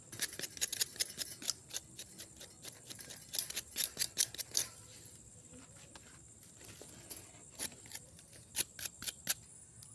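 Knife sawing and crunching through the charred skin of a fire-roasted yam held on a wire fan guard: a quick run of sharp, scratchy cracks, thinning to a few strokes in the second half.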